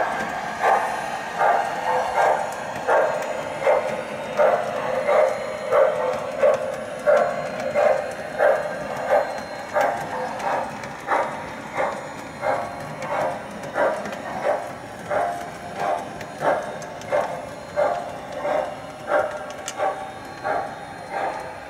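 Model railroad grade-crossing signal bell ringing in a steady, even beat, a little under two strokes a second, while a train of O-gauge freight cars passes the crossing.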